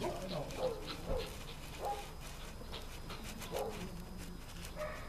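A dog whining and yelping in short, high, bending calls, repeated at irregular intervals.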